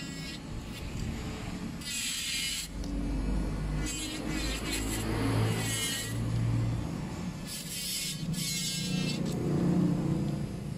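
Electric nail drill with a sanding bit running and filing down acrylic nails. The grinding rises in several bursts as the bit is pressed to the nail, over a steady motor hum.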